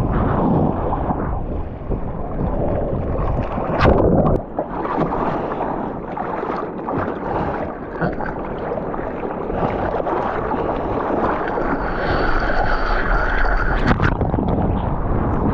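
Sea water rushing and splashing around a GoPro camera on a surfboard, with wind buffeting the microphone; a sharp, louder splash comes about four seconds in.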